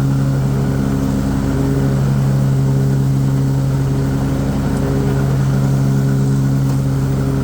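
Kohler 694 cc engine of a Cub Cadet Tank L48 zero-turn mower running steadily at high throttle with the cutting blades engaged, a constant, even hum.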